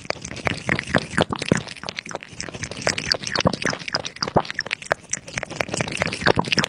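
Water trickling and splashing, a dense, irregular patter of small drips and splashes.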